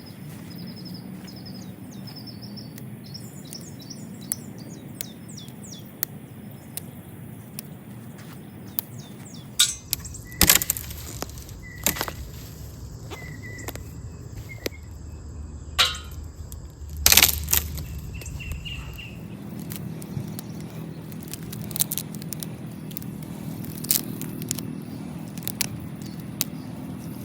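Small birds chirping over a low, steady background hum. There are scattered clicks and a few sharp knocks, the loudest about ten and seventeen seconds in.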